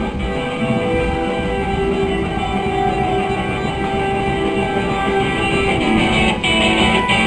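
Rock band playing: electric guitar holding sustained notes over drums.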